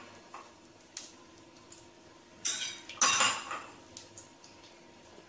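A metal utensil clinking against a stainless steel cooking pot: a light tap about a second in, then two louder ringing knocks close together around two and a half to three seconds in.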